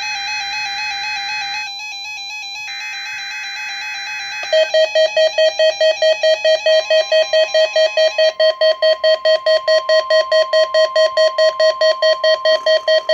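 NOAA Weather Radio weekly test alert from a weather radio: warbling data-burst tones with a one-second break between them, then an electronic alarm beeping about four times a second. A steady higher warning tone joins the beeping a couple of seconds after it starts.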